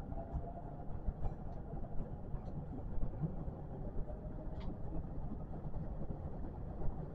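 Kintetsu electric train running, heard from inside the front car: a steady low rumble with a faint steady whine and a few faint clicks.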